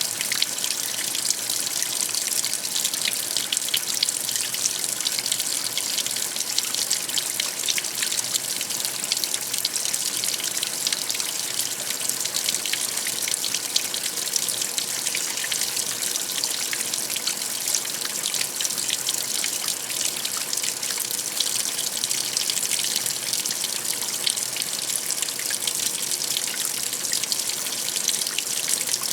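Water running and splashing inside a washing machine during a wash: a steady, even rush of water with fine spattering all through.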